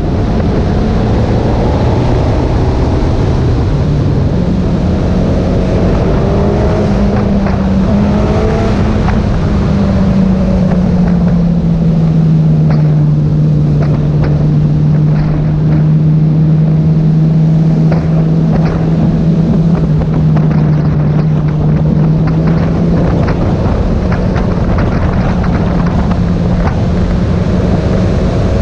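Motorcycle engine running at road speed, with wind rushing over the microphone. The engine note changes pitch a few times in the first ten seconds, holds steady for a long stretch, then rises a little near the end.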